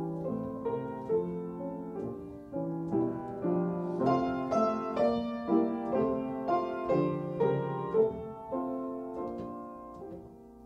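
Solo piano playing the introduction to a Slovak folk-song arrangement, chords and melody notes in a moderate tempo. The notes die away near the end, just before the voice comes in.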